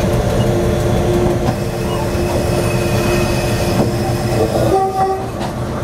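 Train crossing a steel truss bridge at low speed: a steady engine drone with the rumble of wheels on the rails and occasional sharp clicks. A few higher tones come in briefly near the end.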